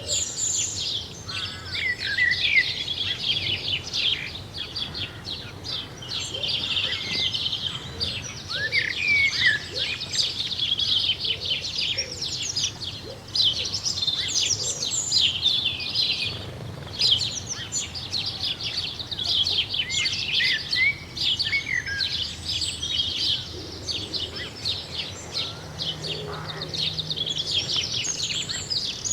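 Many songbirds chirping and singing at once in a dense, unbroken dawn chorus of quick, high twitters and short whistled glides.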